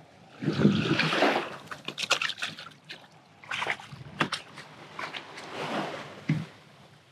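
Shallow surf washing and sloshing over wet sand at the water's edge, with splashing and a few sharp knocks as feet step through the wash.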